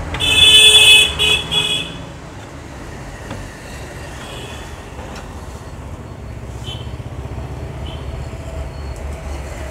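A vehicle horn honking: one longer honk, then two short ones, over a steady low rumble of road traffic.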